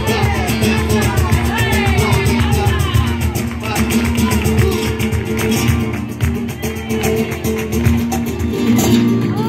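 Live flamenco-style music: acoustic guitars strummed over a cajón, with voices singing in the first few seconds. The music stops near the end.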